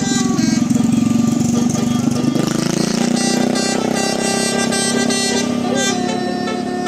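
A vehicle's basuri (telolet) musical horn playing a tune of held notes that step from one pitch to the next, over a running engine.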